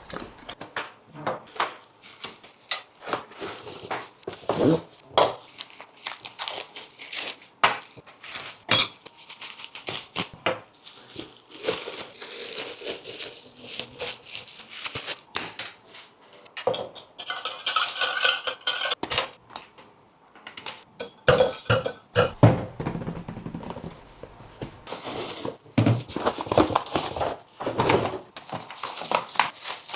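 Unboxing handling sounds: repeated knocks, clatters and clinks of objects and packaging being moved about, with a longer stretch of crinkling or tearing about eighteen seconds in.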